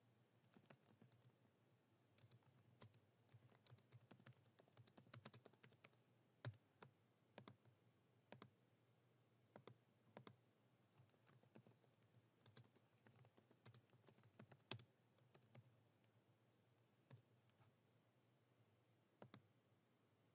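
Faint computer keyboard typing in uneven runs of keystrokes, with a few mouse clicks; the typing thins out to scattered clicks in the last few seconds.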